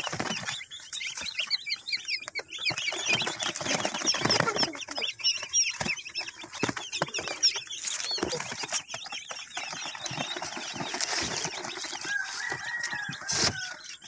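A crowd of newly delivered broiler chicks peeping, many short high chirps overlapping. Scattered rustles and knocks run under the chirps, with one sharp knock near the end.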